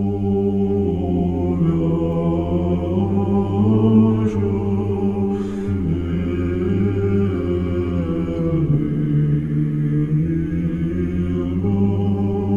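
Slow choral chant sung a cappella, with a low note held steadily beneath upper voices that move from note to note.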